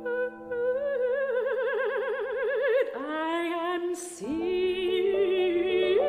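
A woman singing in operatic style over a steady held accompaniment note. She holds a note with a wide, fast vibrato, then swoops up from below into two new notes, with a quick breathy hiss between them about four seconds in.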